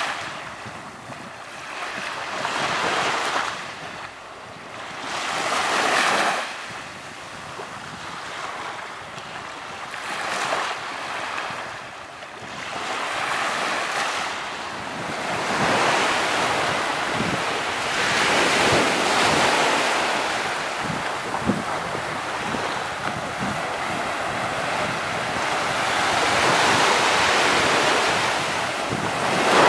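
Ocean waves breaking and washing up a beach, the surf swelling and falling back every few seconds, with a fuller, more continuous wash through the second half.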